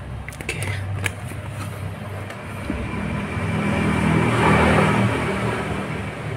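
A few sharp clicks of hands handling a plastic laser rangefinder, then a passing motor vehicle whose engine rumble swells to its loudest about four and a half seconds in and fades again.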